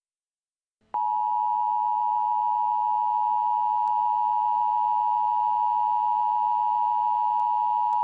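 Emergency Alert System attention signal: a steady two-tone alarm that starts about a second in after a short silence and holds without a break, announcing a tornado warning.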